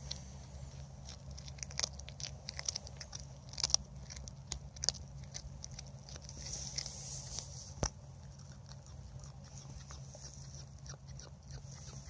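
A cat chewing and biting into a freshly killed rabbit: irregular short crunches and clicks, the sharpest a little under 4 s, about 5 s and about 8 s in.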